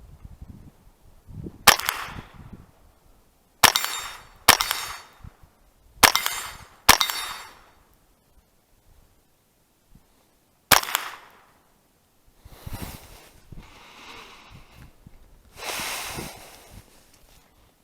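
Six .22 LR rifle shots from a Ruger 10/22 Takedown, fired singly at uneven intervals of about one to four seconds. Two softer, longer rushing noises follow near the end.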